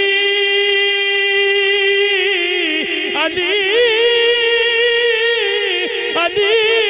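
A male naat reciter singing unaccompanied, holding one long note for about three seconds, then rising to a higher note that he ornaments with wavering runs.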